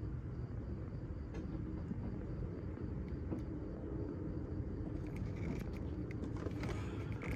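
Chevrolet LT1 6.2 L V8 with a swapped-in LT2 intake manifold running at a steady idle, a low rumble.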